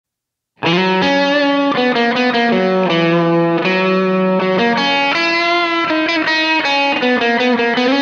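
Instrumental rock music led by a distorted electric guitar playing a melody of held notes. It starts suddenly about half a second in.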